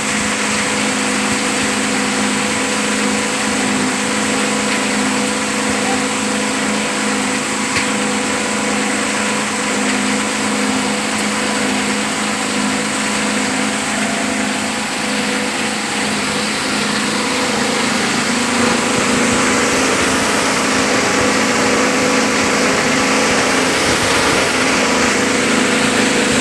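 PET bottle grinder machine running steadily, its motor and cutter giving a constant hum over a broad rushing noise, a little louder in the last third.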